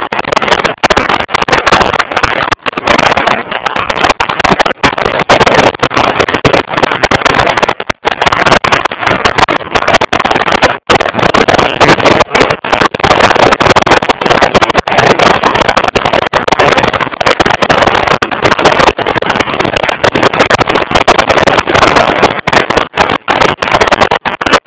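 Loud wind rush on the microphone of a motorcycle at road speed, mixed with the bike's running noise, broken by many brief dropouts.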